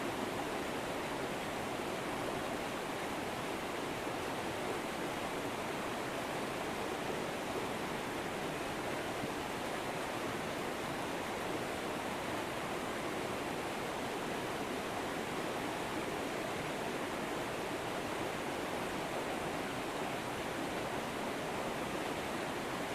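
River water flowing steadily, a constant rushing with no breaks.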